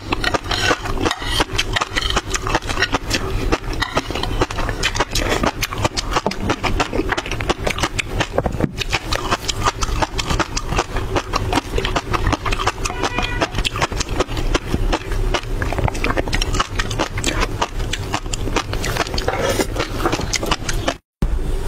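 Close-miked eating of fish roe: a rapid, continuous crackle of the small eggs popping in the mouth, with wet mouth sounds, and a spoon scraping the plate at the start.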